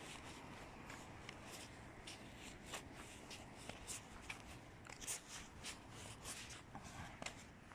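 Faint footsteps of a person walking on pavement: short scuffing ticks at walking pace, about two to three a second, over a faint steady background noise.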